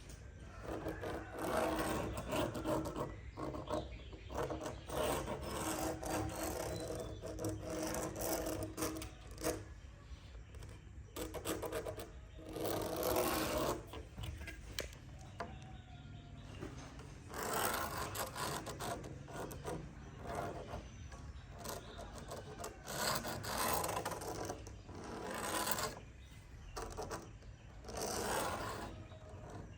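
Rasping, rubbing strokes on wood from hand work on the surface, each lasting one to three seconds, irregularly spaced with short pauses between.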